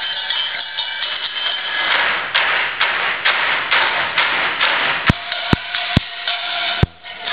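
Percussion ensemble playing a table piece with their hands on the tabletop: a rhythmic swishing for a few seconds, then four sharp slaps on the table, about half a second apart, near the end.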